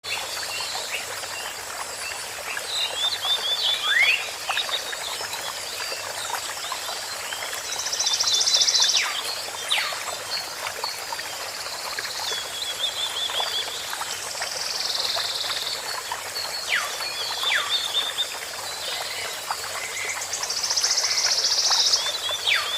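Olive-backed sunbird singing: high trilled chirps and quick falling whistles, broken three times by long buzzy rattles, over a steady hiss.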